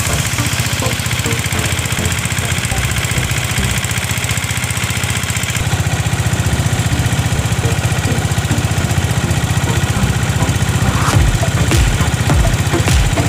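A small river boat's engine running steadily underway, heard from on board, with wind and water noise over it.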